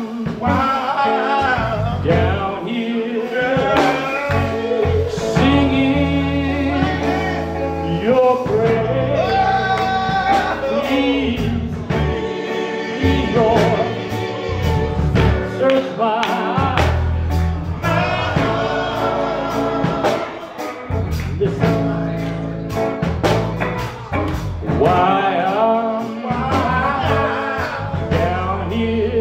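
Live gospel music: a male lead singer with a group of male backing voices, accompanied by electric guitar and band.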